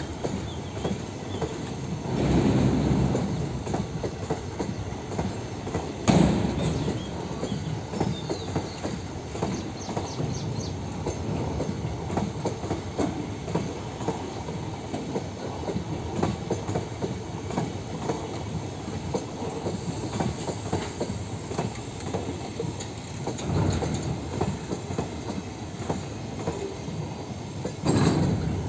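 Rake of NMG car-carrier wagons rolling past on the rails, wheels clacking steadily over rail joints, with a few louder swells of wheel noise.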